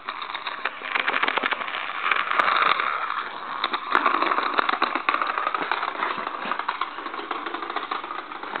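Battery-powered toy hamster running across a tile floor: its small motor whirring, with a fast, steady rattle of clicks from its drive.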